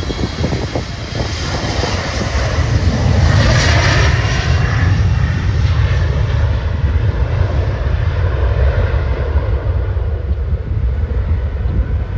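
Embraer E170 regional jet's twin turbofan engines at takeoff thrust during the takeoff roll: a steady low rumble with a jet whine that swells to its loudest about four seconds in and drops in pitch as the jet goes past.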